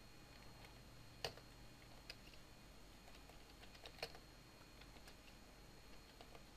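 Faint, sparse keystrokes on a computer keyboard as short commands are typed, with sharper key clicks about a second in and again about four seconds in.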